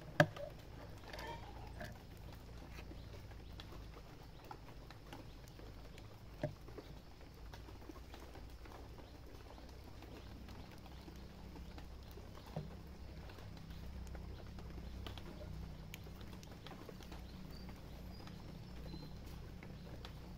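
A single shot from a silenced air rifle: one sharp crack just after the start. Two much fainter knocks follow about 6 and 12 seconds later over a low steady hum.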